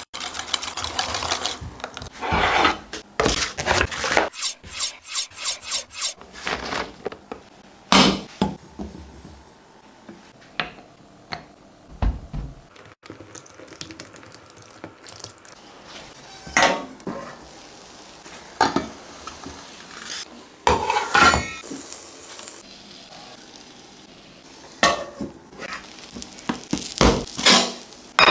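Kitchen utensils and dishes clattering and scraping during food preparation, with a quick run of light clicks about five seconds in and scattered sharper knocks.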